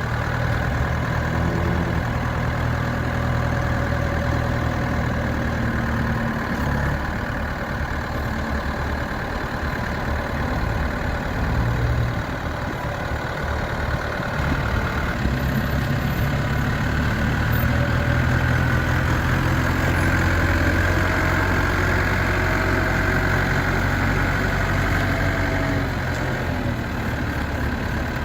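1995 JCB 210S backhoe loader's diesel engine running steadily, its note shifting several times as the load changes while the machine is operated.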